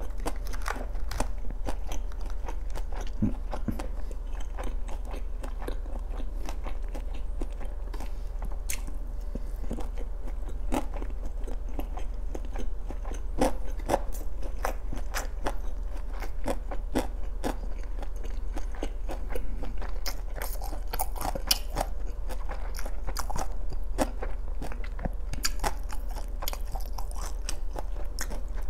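A person chewing and biting food close to a clip-on microphone: a continuous run of small mouth clicks and smacks, over a low steady hum.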